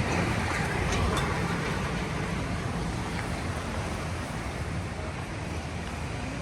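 Steady rushing noise, slowly getting quieter.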